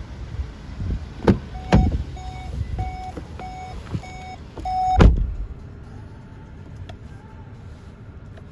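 Volkswagen Tiguan driver's door opened with a latch click and clunk. A warning chime beeps about twice a second while the door stands open, then the door shuts with a heavy thud about five seconds in. After the thud the outside wind noise drops to the muffled quiet of the closed cabin.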